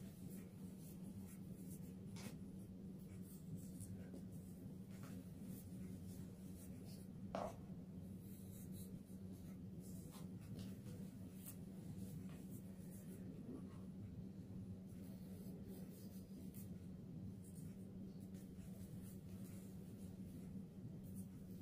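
Hands crushing and crumbling soft reformed gym chalk in a tub of loose chalk powder: quiet crunches and powdery rubbing, over a low steady hum. About seven seconds in comes one brief, louder sound that rises in pitch.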